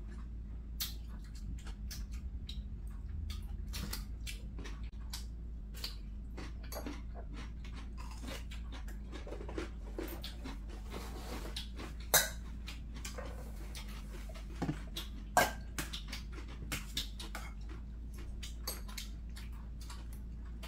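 Eating at a table: chewing, and chopsticks clicking and scraping against glass and stainless steel bowls. There are many small clicks throughout and two sharper clinks about twelve and fifteen seconds in, over a steady low hum.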